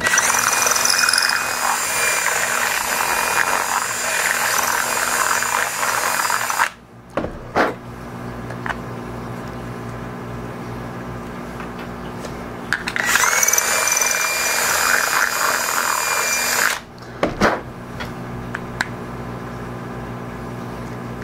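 Cordless drill running in two bursts of about six and four seconds, reaming out a hole in a piece of acrylic to widen a hole drilled with a slightly undersized bit. A few light clicks come between the bursts.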